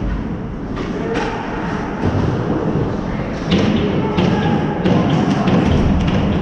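Ice hockey play on the rink: a run of sharp knocks and thumps from sticks and puck striking, over the steady scrape of skates on ice. The knocks come thicker and louder in the second half.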